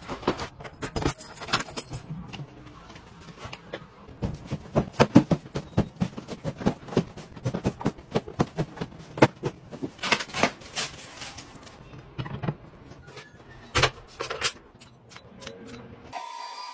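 A quick run of clicks, knocks and rattles as objects and cardboard boxes are handled. Near the end a small wall-mounted fan starts running with a steady hum and a faint whine.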